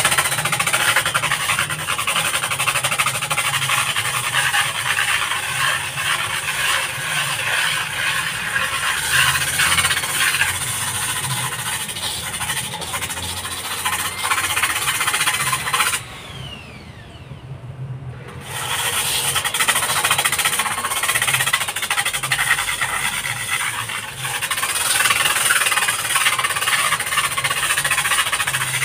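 Electric drill spinning a zirconia flap disc pressed against a masonry wall, sanding off mould with a harsh, loud grinding. About two-thirds of the way through, the disc leaves the wall for a couple of seconds and slows with a falling whine, then the drill runs up again and grinding resumes.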